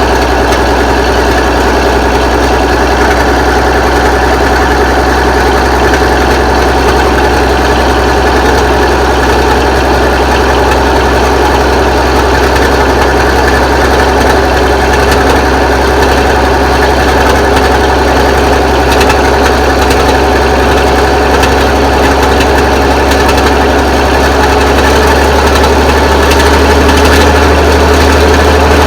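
1983 Kenworth K100 cabover's diesel engine idling steadily, getting slightly louder near the end. It is a heavily smoking engine that the owner concludes is worn out and needs replacing.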